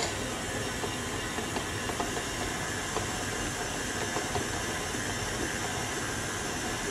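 Electric stand mixer running steadily at a low speed, kneading pizza dough as the flour works into the wet mixture.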